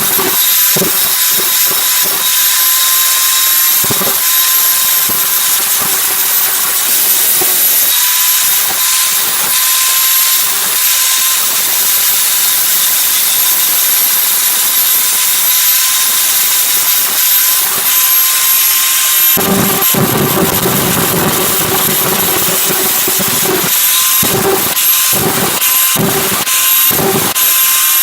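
Angle grinder running with its disc grinding the steel of a kitchen knife, taking off the heel and flattening the back: a steady high whine over a hiss. About two-thirds through the sound grows heavier, and near the end it comes in short broken strokes.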